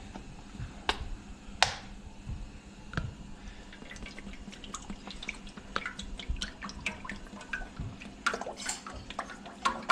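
Whipping cream poured from a carton into a nonstick frying pan, glugging and splashing in quick irregular spatters from about four seconds in. Before that, a couple of sharp knocks as the pan is set on the stove grate.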